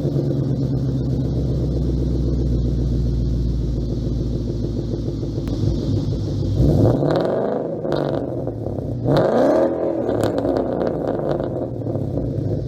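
Ford 5.0 Coyote V8 Mustang with its mufflers removed, idling with a steady burble, then blipped twice: the pitch climbs and drops back about seven seconds in and again about nine seconds in.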